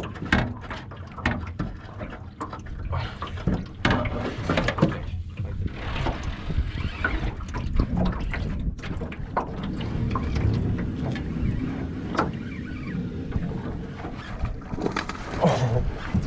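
Wind buffeting the microphone and water lapping at a jon boat's hull, with many sharp knocks and clicks throughout. A busier, louder stretch comes near the end as a largemouth bass is netted.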